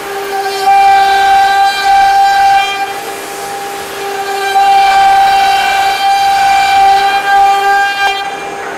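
CNC router spindle whining at a steady high pitch as its bit carves a pattern into a wooden board. The pitch holds while the loudness swells and eases as the cut goes on, louder near the start and through the middle, softer a few seconds in and near the end.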